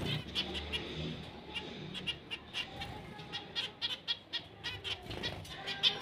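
Zebra finches chirping: many short, high calls repeated irregularly, a few each second.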